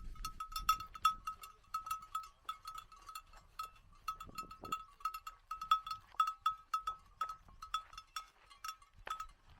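A livestock bell worn by a grazing animal clanking quickly and irregularly as the animal moves, each strike ringing on the same clear note.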